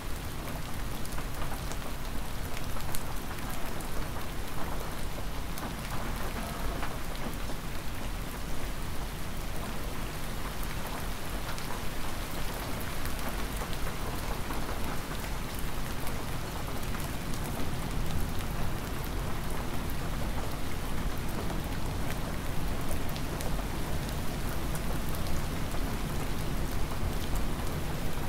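Hard, near-freezing spring rain falling steadily, with single drops ticking through the constant hiss.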